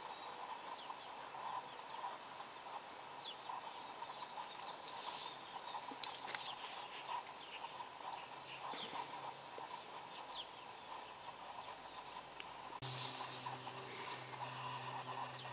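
Outdoor ambience: faint scattered bird chirps over a steady background hiss. A low steady hum comes in suddenly near the end.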